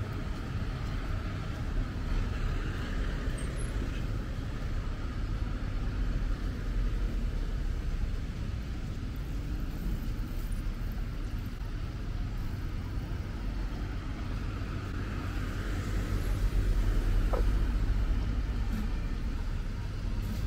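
Road traffic: cars passing on a town street, a steady low rumble that swells as one goes by near the end.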